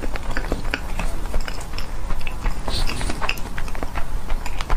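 A person chewing salmon-wrapped sushi up close to the microphone: a run of short mouth clicks and smacks, several a second.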